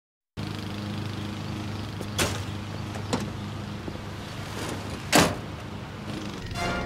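A steady engine hum with two sharp knocks, then a pickup truck's door slamming shut about five seconds in, the loudest sound.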